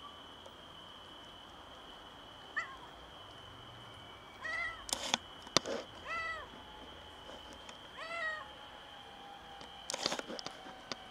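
A cat meowing, a series of short calls that rise and fall, about one every two seconds, the first one faint. A few sharp knocks come in between, around the middle and near the end, over a faint steady high whine.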